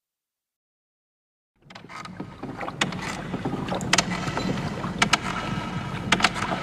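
Silence, then a bit over a second and a half in, a recorded seaside sound effect begins: a steady wash of water with sharp knocks about once a second, as of a wooden boat or oars.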